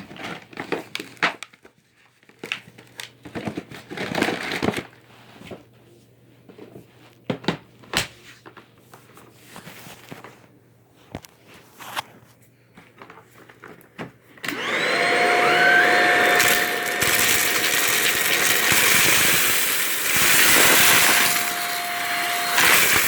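Dry noodles clicking and rattling as they are scattered and crunched on carpet, with a few sharp knocks. About fourteen seconds in, a vacuum cleaner starts with a rising whine and runs loudly, picking up the noodles.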